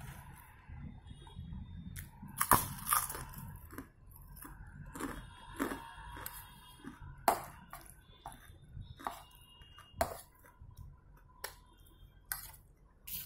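Close-up chewing of crispy chicharon (fried pork rind), with sharp crackling crunches between quieter, wetter chewing. The crunches are loudest about two and a half seconds in, again around three, seven and ten seconds.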